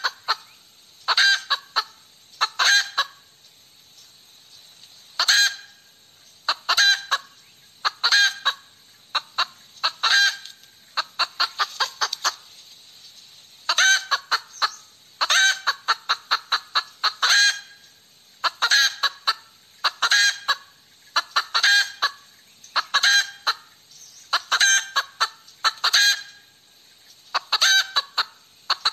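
Domestic hen cackling: bouts of quick, loud clucks, one bout every second or so, with a couple of short pauses.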